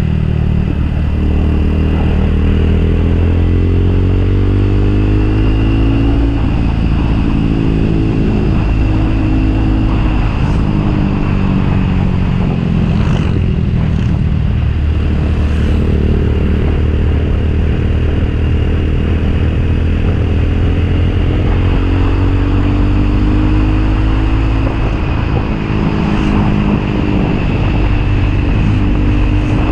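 Motorcycle engine running under way, loud and steady, its pitch repeatedly rising and then dropping back as the throttle and gears change.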